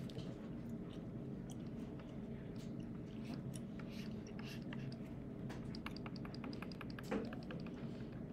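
Stylus tapping and scratching on a tablet screen in many short, irregular strokes, over a steady low hum; one louder knock about seven seconds in.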